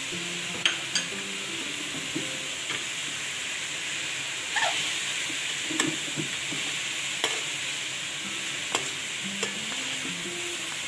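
Shredded vegetables and minced chicken sizzling in a steel wok over a high flame while being stirred and tossed. A slotted spoon clinks sharply against the pan side several times.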